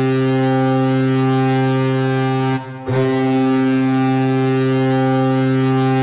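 Colorado Avalanche goal horn from 2018 on, sounding a long, low, steady blast. It breaks off briefly about two and a half seconds in, then blasts again.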